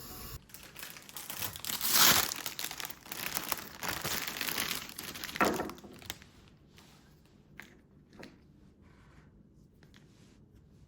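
Crinkling and rustling from something being handled. It is dense for about the first six seconds, with louder bursts around two and five and a half seconds in, then thins to a few scattered light clicks and rustles.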